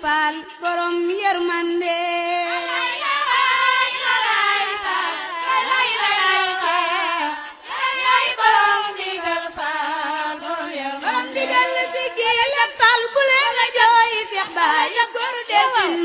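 Singing of a Wolof devotional song: a lead voice holds long notes that waver in pitch, and other voices overlap it in the middle.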